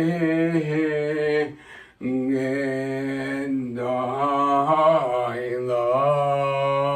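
Shofar blown in long held blasts. One note lasts about a second and a half and breaks off. Then a second blast is held for about five seconds, wavering in pitch midway before settling on a steady note.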